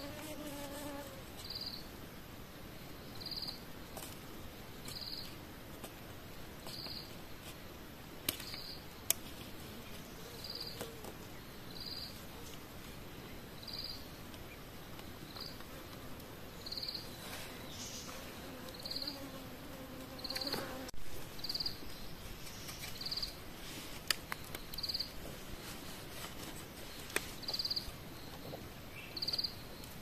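An insect calling in short, evenly spaced high chirps, about one every second and a half, over occasional sharp clicks and rustles.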